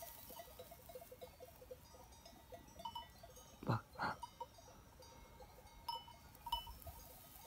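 Faint, irregular tinkling of bells on a grazing flock of sheep, with two short, sharper sounds near the middle.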